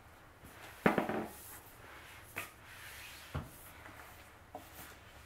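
White flat-pack desk panels being handled and laid on carpet: a knock with a short scrape about a second in, then a few lighter knocks of board on board.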